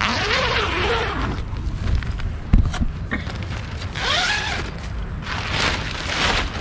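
Wind buffeting the microphone as a steady low rumble, with bursts of rustling noise near the start, about four seconds in and near the end.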